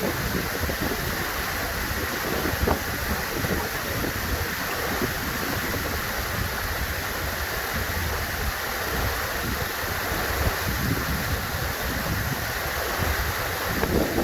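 Waterfall: water rushing steadily with a low rumble, swelling briefly louder a couple of times.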